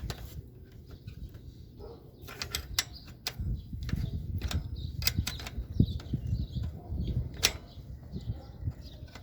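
A 15 mm wrench working a bicycle axle nut loose: scattered metallic clicks and taps of the wrench on the nut and frame, with low rustling handling noise through the middle.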